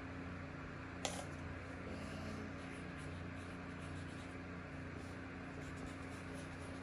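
Felt-tip marker drawing on paper, faint scratchy strokes over a steady low room hum, with one sharp click about a second in.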